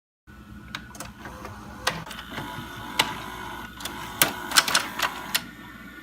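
Irregular sharp clicks and light clatter over a steady low hum, with the loudest clicks about four to five seconds in.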